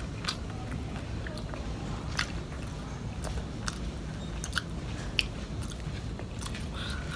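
Chewing and crunching of crispy fried catfish, with scattered sharp crackles as the fried fish is broken apart and eaten.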